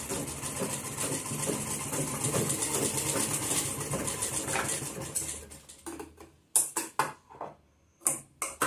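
Sewing machine running steadily as it stitches a shoulder seam of a dress, slowing and stopping about five seconds in. A few sharp clicks and taps follow near the end.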